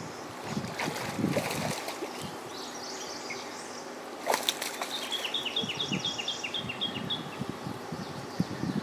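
A bird sings a quick run of about ten short, evenly spaced high notes lasting about two seconds, after a single sharp click. Dull low thumps and a faint hiss of wind and water lie underneath.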